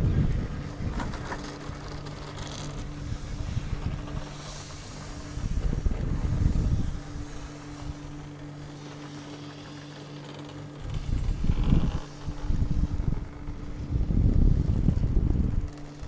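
A Nippon Cable pair chairlift running, with a steady low mechanical hum. Several times it is broken by loud low rumbling gusts of wind on the microphone.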